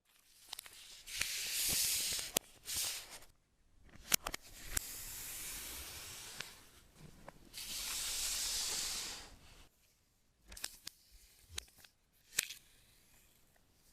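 Packaging being handled for an iPad Pro: four hissing bursts of plastic wrap or cardboard rubbing, sliding and peeling, the longest lasting about two seconds, with light clicks and taps between them.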